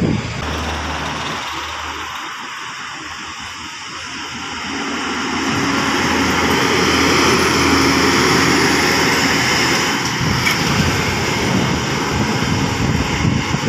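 Daewoo BH117H coach bus driving past close by, its diesel engine running. The sound builds over a few seconds, is loudest a little past the middle, then fades as the bus pulls away up the road.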